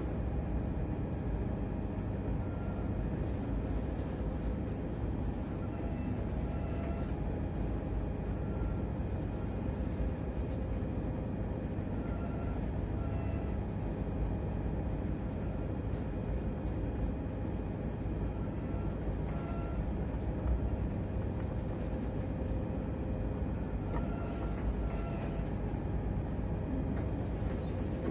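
Steady low rumble and hum of a ship's engines and machinery heard from the bridge, with faint short high-pitched tones every few seconds.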